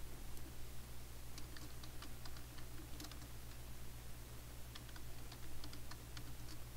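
Computer keyboard keys tapped in two short runs of keystrokes as a name is typed, over a steady low electrical hum.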